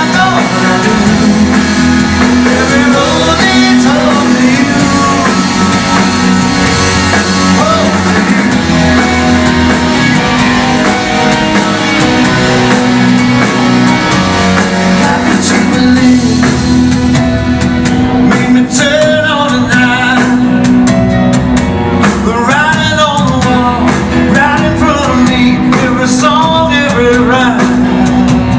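Live rock band: a man sings lead over electric guitars, drums and keyboards. Partway through the cymbals and high end thin out and the singing stands out more.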